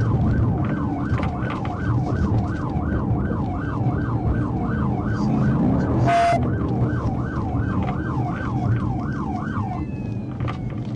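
Police car siren in fast yelp mode, sweeping rapidly up and down about two to three times a second over the low rumble of the cruiser's engine and road noise. A short burst of noise interrupts it about six seconds in, and the siren stops near the end.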